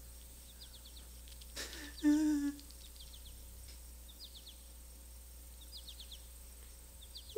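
Faint bird chirps recur throughout. About two seconds in, a short breath is followed by a brief, level-pitched hummed sound from a puppet's voice, the loudest thing here.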